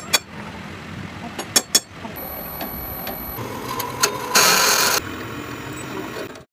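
Drill press motor running as its bit cuts into a steel truck axle tube, with a louder harsh grinding stretch of cutting just after four seconds. A few sharp metal clicks and knocks come in the first two seconds.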